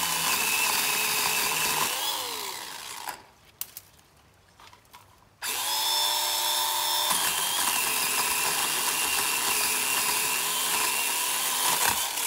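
Ryobi 18 V One+ cordless pole saw's electric motor and chain running with a steady whine, then let off about two seconds in and spinning down. A few clicks follow in the quiet gap, the saw starts again abruptly a few seconds later, shifts in pitch, and runs until it spins down at the end.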